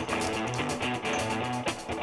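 Background guitar music with a melody of changing notes.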